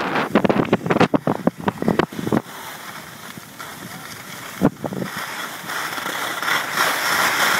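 Skis scraping and crunching over packed snow during a downhill run, with wind rushing on the microphone. A quick run of sharp crunches fills the first two seconds or so, then a steadier rushing noise swells louder near the end.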